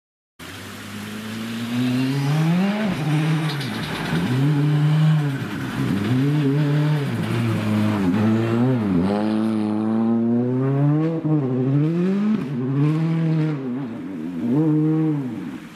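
Ford Fiesta R5 rally car's turbocharged four-cylinder engine at full attack on a snowy stage, starting about half a second in. The revs climb and drop again and again as it accelerates, shifts and lifts through the bends, passing close and then pulling away.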